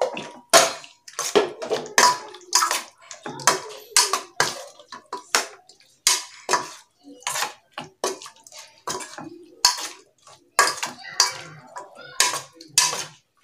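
A metal spoon stirring raw chicken pieces into a wet green paste in a stainless steel bowl. The spoon makes short, wet scraping and clinking strokes against the bowl, about one or two a second.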